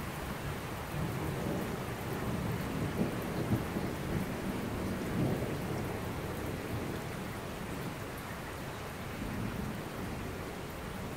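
Heavy rain falling steadily on a street, with a low rolling rumble of thunder that swells from about a second in and fades around the middle.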